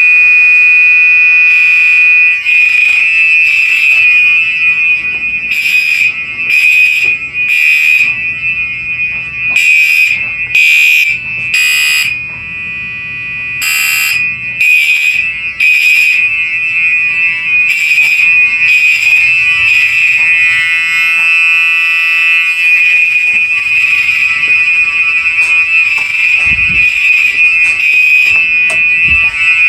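Two Gentex fire-alarm horn strobes, a Commander 3 and an older SHG, sounding together. One gives a steady high-pitched tone without a break. Over it the other pulses in repeating groups of about three beats, the temporal-three evacuation pattern.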